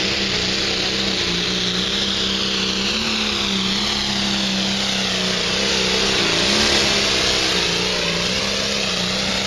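Diesel pulling tractor's engine running flat out under load as it drags the sled: a loud, steady engine note with a strong hiss above it.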